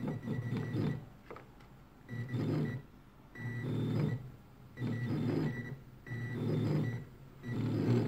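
Stepper motors of a gear-driven gimbal running in short bursts, about six times, each lasting under a second, as the controller drives them to counter the base being moved by hand.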